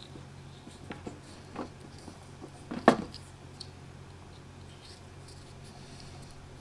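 Small handling noises as electrical wires are threaded through heat-shrink tubing: a few soft clicks and taps, the sharpest about three seconds in, over a faint steady low hum.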